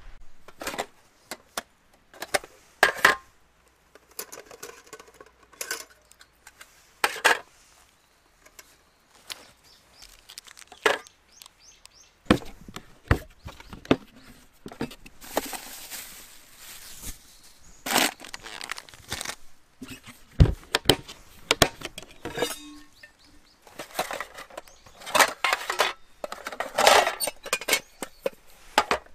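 Camp gear being handled: irregular clicks, knocks and light clinks, including a plastic cooler lid being opened and aluminium mess tins and lids being picked up and set down.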